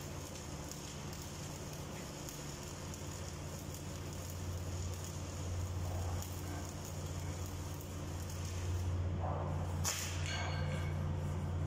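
Electric arc welding on steel: a continuous crackling sizzle from the arc over a steady low hum, growing louder in the second half.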